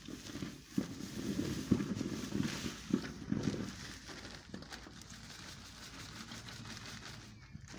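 Woven plastic sacks rustling and crackling as they are handled and pushed down into the earth pit, with a few sharp clicks about two and three seconds in, then a quieter rustle.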